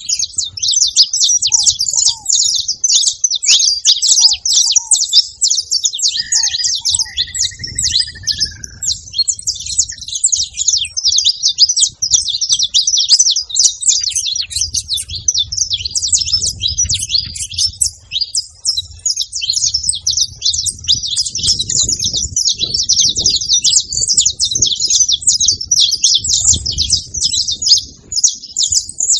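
Several saffron finches chirping together in a dense, continuous chatter of rapid high notes, with a couple of clearer, lower drawn-out notes about a quarter of the way in.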